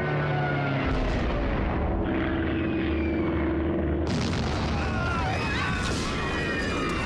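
War sound effects: an aircraft engine drone over the low rumbling booms of bomb blasts. About four seconds in, the sound turns suddenly harsher and noisier, with crashing impacts and a wavering, cry-like sound.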